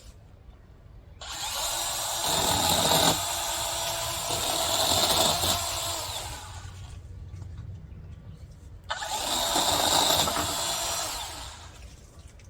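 Chainsaw running in two bursts as it cuts wood: the first about five and a half seconds long, the second about two and a half seconds, each starting and stopping abruptly.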